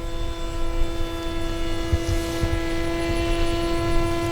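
Electric motor and pusher propeller of a Hobby King Sky Eye R/C plane in flight, giving a steady, even-pitched whine at constant throttle during the climb. A gusty low rumble of wind on the microphone runs underneath.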